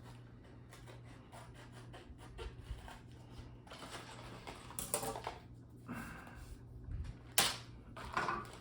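Plastic router lettering templates being handled and sorted: light rubbing and scraping with scattered taps, and one sharp click near the end, over a low steady hum.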